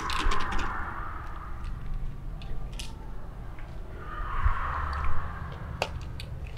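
A person breathing out audibly twice, each a long breathy exhale of about a second: one at the start and one about four seconds in. A few faint clicks and rustles fall between them.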